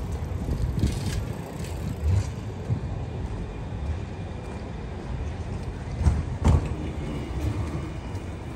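City street ambience: a steady low rumble of traffic and outdoor noise, with two sharp knocks close together about two-thirds of the way through.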